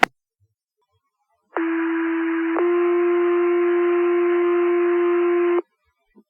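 Two-tone fire paging alert over a radio receiver: one tone held about a second, then a second tone held about three seconds before cutting off, signalling the page that is about to be broadcast. A short radio click comes at the start.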